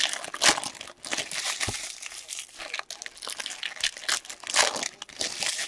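Foil trading-card pack wrappers being torn open and crinkled by hand: an irregular crackling rustle with a few sharper, louder crinkles.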